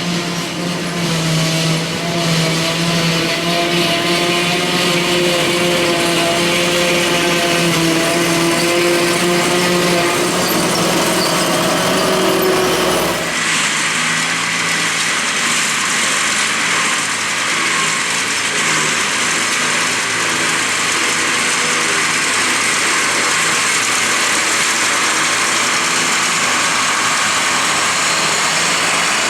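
Heavy diesel farm machinery running steadily at a grass silage harvest, a pitched engine hum over a wide mechanical noise. About 13 seconds in the sound changes abruptly to a hissing, higher machine sound with much less low hum.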